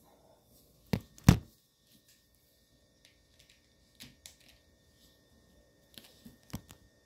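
Two sharp knocks about a second in, close together, then a few fainter clicks and taps later on, like a phone or objects being handled on a table.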